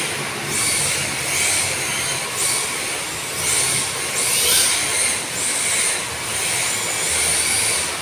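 Two electric RC drift cars running on a polished tile floor: their motors whine up in repeated bursts, about one a second, as the throttle is blipped, and their hard drift tyres hiss as the cars slide.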